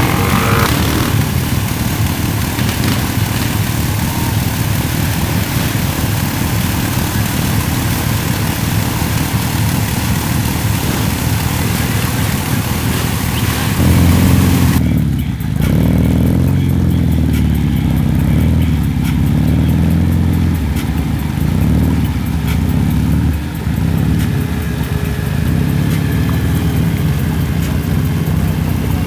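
Off-road engines of a quad ATV and a side-by-side running under load through deep mud, with a hissing wash over the first half. About fifteen seconds in, the sound changes to a deeper engine note that dips and swells with the throttle.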